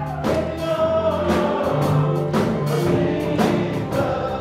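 Gospel music with singing and a steady beat of about two strokes a second.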